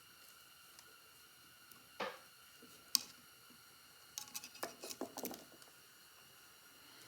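A screwdriver and small screw working against the metal carriage of an Edison Amberola V phonograph: a scrape about two seconds in, a sharp click a second later, then a quick run of light clicks and taps.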